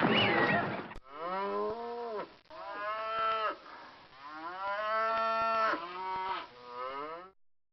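Cattle mooing: about five long, drawn-out moos, several cows calling one after another. In the first second, a busy, noisy sound is heard before it cuts off and the moos begin.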